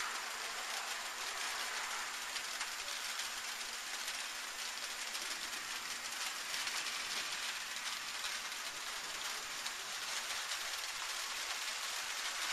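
Light rain falling steadily: an even hiss flecked with the ticks of many small drops.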